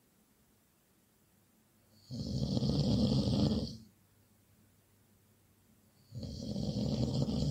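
A person snoring loudly: two long snores about four seconds apart, with quiet breathing gaps between them, the second still sounding at the end.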